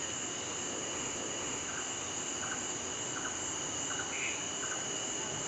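Night insect chorus of crickets: a steady high trill, with faint short chirps repeating about every three quarters of a second.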